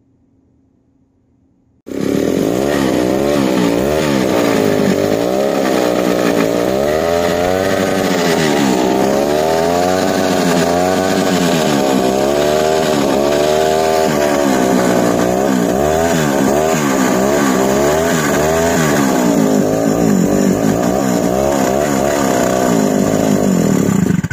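Chrysler Power Bee 7 hp two-stroke engine running loud, starting about two seconds in. Its speed swings up and down every second or so. This is its first run in 23 years.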